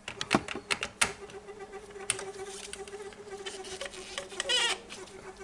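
Unitra ZK 120 reel-to-reel tape recorder mechanism: a string of sharp clicks and taps over a steady whine, with a short squeak about four and a half seconds in, from a bearing in the tape transport that the repairer singles out.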